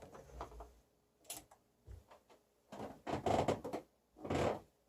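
Handling noise from setting up gear: a few light clicks and knocks, then two longer rustling scrapes in the second half.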